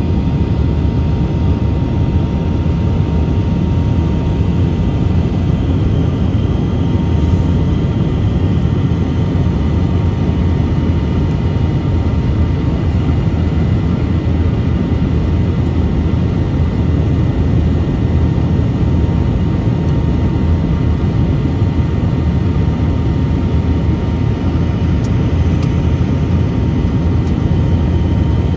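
Steady engine and airflow noise of an airliner heard from inside the passenger cabin: a dense, even low rumble with a faint steady whine above it.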